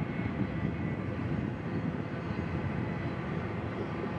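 Union Pacific freight train rolling past: a steady low rumble with a faint thin high tone above it.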